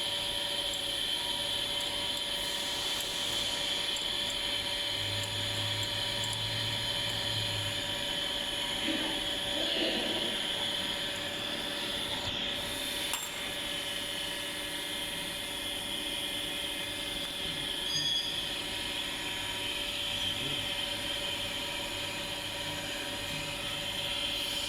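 Steady hum and high-pitched whine of running machinery, with a short low hum rising about five seconds in.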